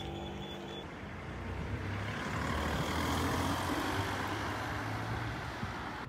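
A motor vehicle's engine passing close by: its rumble and road noise swell over the first few seconds and ease off slightly near the end.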